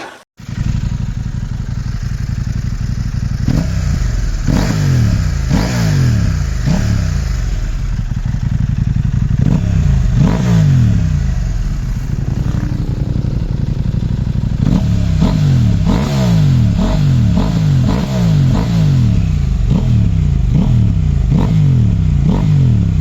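KTM 790 Adventure's parallel-twin engine breathing through an aftermarket Blackwidow exhaust, idling and blipped over and over, the revs shooting up and dropping back each time. The blips come about once a second at first, then in a quick run of short blips from about two-thirds of the way through.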